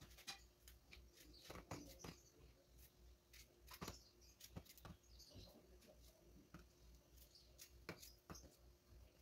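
Faint irregular clicks and soft taps of a small knife cutting fresh strawberries, the pieces dropping into a plastic pot, over a low steady hum.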